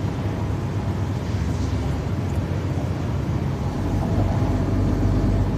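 Steady low drone of a lorry's diesel engine and tyre noise heard from inside the cab while driving along the motorway, growing a little louder near the end.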